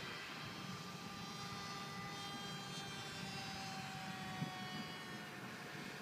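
A radio-controlled model airplane's EMax CF2822 brushless outrunner electric motor driving a 10x4.7 propeller, giving a steady whine whose pitch sinks slightly over the seconds. A single short tick comes about four and a half seconds in.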